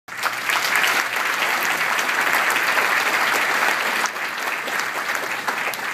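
Audience applauding: dense, steady clapping from a large crowd, easing off slightly after about four seconds.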